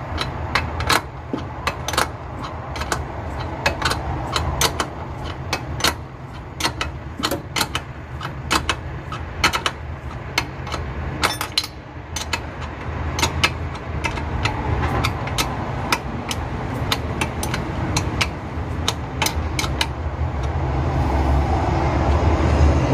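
Wrench work on the nuts of a brake vacuum booster: many sharp metal clicks and clinks at irregular intervals, a few a second, over a steady low hum.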